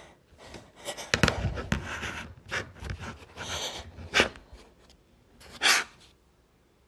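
A person's uneven, breathy gasps and sniffs as a tickling nose builds toward a sneeze, several short breaths with the last two louder, no sneeze coming out.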